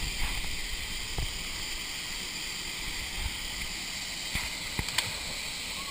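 Steady rushing of a waterfall pouring into a pool, with a few faint knocks.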